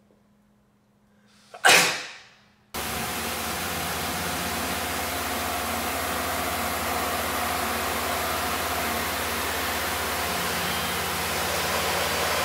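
A man sneezes once, loudly, about two seconds in. After a sudden cut, a CNC milling machine runs steadily: a small end mill cutting brass, heard as an even hiss over a low spindle hum.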